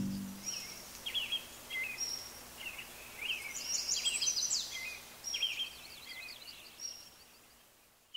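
Small birds chirping and singing over a faint steady outdoor hiss: many short high calls and whistled notes, with a quick run of rapid notes about four seconds in.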